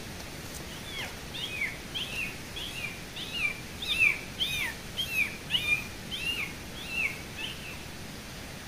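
A bird singing a fast run of short whistled notes, each rising then falling, coming in quick pairs about twice a second, starting about a second in and stopping near the end, over a steady background hiss.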